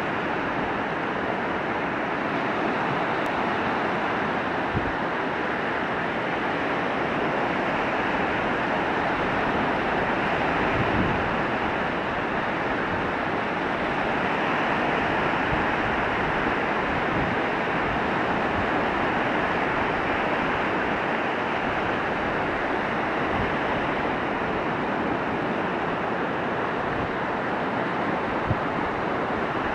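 Small Baltic Sea waves breaking and washing onto a sandy, stony shore in a steady surf wash, with wind buffeting the microphone now and then.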